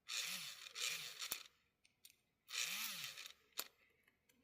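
Small electric motor of an HO-scale model locomotive faintly whirring as it spins up and winds down twice, with a couple of sharp clicks.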